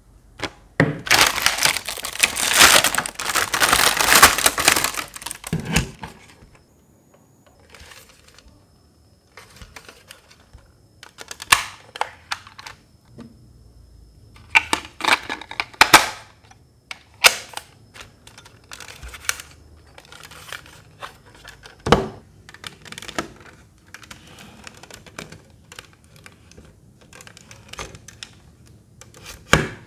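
Hands handling a small plastic battery-powered desk fan and its cylindrical battery cell. A loud crinkling rustle lasts about four seconds near the start, then come scattered light clicks and taps of plastic as the battery goes into the compartment in the base and the fan is handled.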